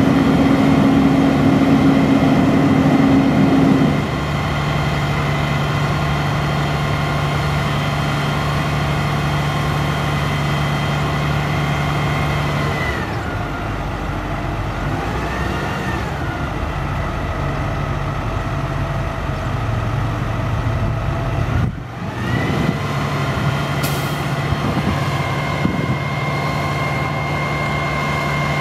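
Diesel engine of a 2007 Peterbilt 340 crane truck running at raised speed to drive the crane's hydraulics while the boom is raised and extended, with a steady high whine over it. The engine note steps down about four seconds in, sags and picks up again around the middle, and briefly drops out near the end before settling back.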